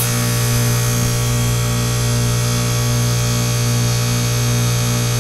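Goodman heat pump outdoor unit running in defrost mode, giving a steady deep hum with a faint, evenly pulsing tone above it.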